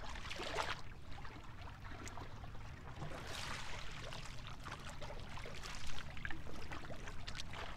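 Whitewater kayak paddle blade planted and pulled through flat water in bow draw strokes as the boat spins, giving splashing, trickling swishes a few seconds apart, the longest about three seconds in.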